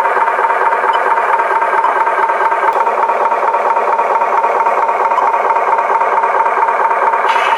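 Battery-powered toy truck running: its small electric motor and plastic gears give a steady buzzing whine with a fast rattle.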